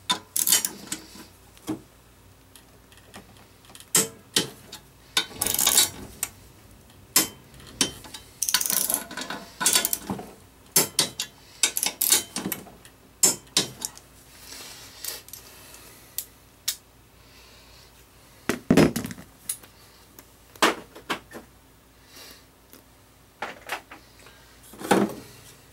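Metal hand tools and parts being handled: irregular sharp clanks, clinks and rattles scattered throughout, some single and some in quick clusters.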